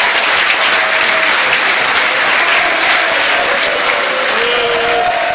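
Large crowd applauding: dense, steady clapping with a few voices cheering over it.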